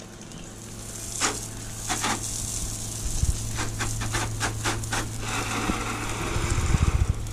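Everflow 12-volt softwash pump running with a steady hum while water sprays from the wand, with a run of clicks and knocks through the middle. The spray hiss grows stronger about five seconds in.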